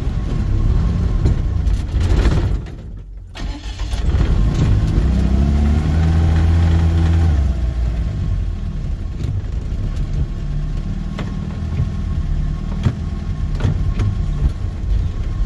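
Off-road 4x4's engine working through a deep rut of hard clay. It drops away briefly about three seconds in, then revs up with a rising pitch and keeps pulling steadily under load.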